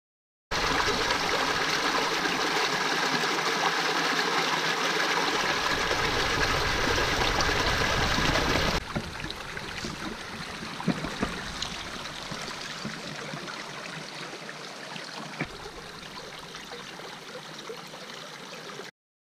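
Shallow mountain stream running over rocks. It is louder for about the first eight seconds, then changes abruptly to a quieter trickle with a few faint clicks.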